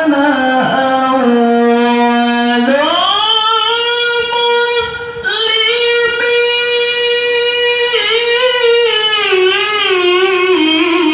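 A male Quran reciter chanting a melodic recitation (tilawah) in a high voice into a handheld microphone, drawing out long held notes. About two and a half seconds in, his voice leaps up to a high note and holds it, then turns in wavering ornaments near the end.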